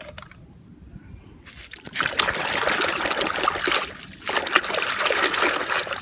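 Water splashing and sloshing in a plastic basin as muddy toy vehicles are swished about by hand to wash them, starting about two seconds in, with a brief lull about two-thirds of the way through.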